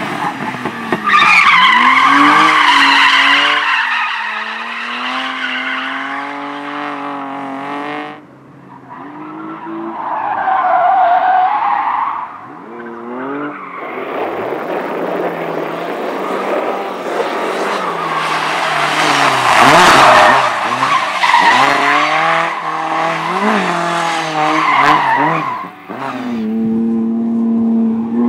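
Competition cars being driven hard through an autoslalom course: engines revving up and dropping back repeatedly between tight turns, with tyres squealing through the corners. The level dips sharply about eight seconds in and again near the end, then the engine and tyre noise builds again.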